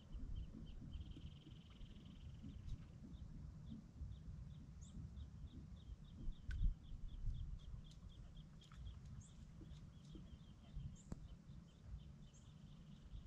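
Faint bird calls: a run of short, high chirps several times a second, with a brief buzzy trill about a second in. Under them is a low rumble, with a few light clicks and one thump a little past halfway.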